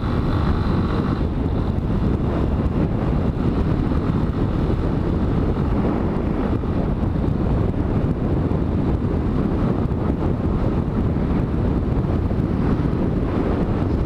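Yamaha Fazer 250's air-cooled single-cylinder engine running steadily as the motorcycle rides along, mixed with heavy wind noise on the microphone.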